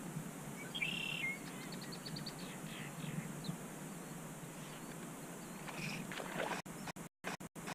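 Birds calling, with a short call about a second in, a quick run of high ticks, and another call near the end, over low steady wind and water noise. In the last second the sound cuts out several times.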